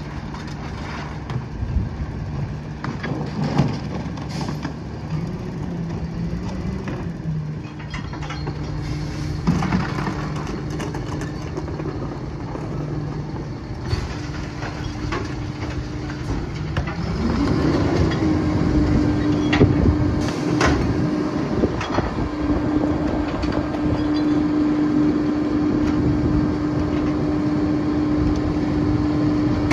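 Freightliner M2 garbage truck's diesel engine idling steadily, with knocks and bangs as recycling bins are tipped into the New Way Viper rear loader's hopper. About halfway through, the engine speeds up and holds a higher steady note, as it does when the truck throttles up to run the hydraulic packer.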